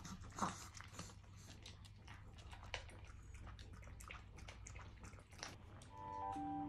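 A Chihuahua lapping water from a glass bowl: a run of faint, quick wet clicks. Soft piano music comes in near the end.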